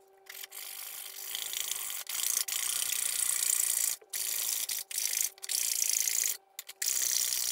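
Hand-held saw blade cutting through a cardboard tube, a rasping scrape in back-and-forth strokes with a few brief pauses.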